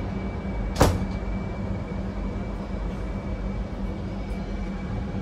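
Steady low rumble of a passenger train coach rolling slowly, heard from inside the coach corridor, with one sharp knock just under a second in and a faint steady high whine.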